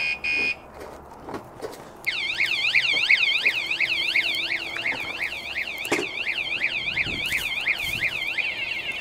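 Cheap self-contained motorcycle alarm: two short beeps, then, about two seconds in, it goes off with a loud, fast up-and-down warbling siren, set off by the bike being handled. Near the end the siren switches to a quicker warble.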